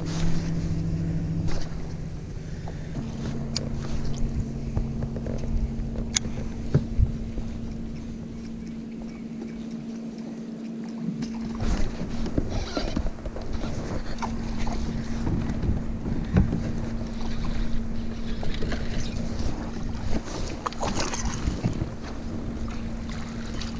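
Wind on the microphone and water moving around a fishing kayak, with a steady low hum throughout and scattered clicks and knocks that grow busier in the second half.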